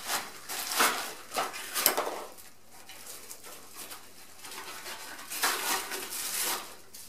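Clear plastic packaging crinkling and rustling in bursts as small parts are unwrapped by hand, with a quieter pause in the middle.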